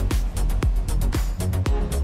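Background music with a steady kick-drum beat, about two beats a second, and sharp ticks between the beats.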